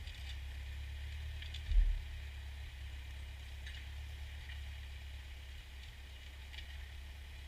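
Ford farm tractor engine running with a steady low drone, with one short low thump about two seconds in.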